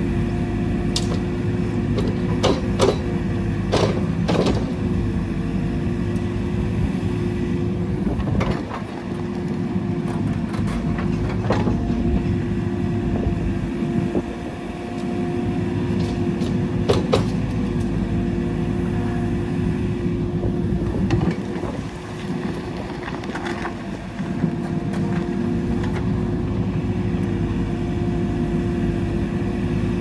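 JCB 4CX backhoe loader's diesel engine running steadily under load while its hydraulics swing and tip the backhoe bucket. The engine note dips briefly a few times, and sharp clanks come now and then.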